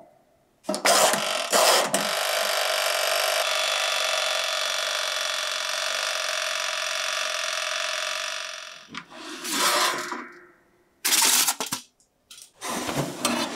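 Toaster oven being shut and set: two short clunks, then a steady mechanical whirr for about seven seconds, followed by a few knocks near the end as the oven is handled again.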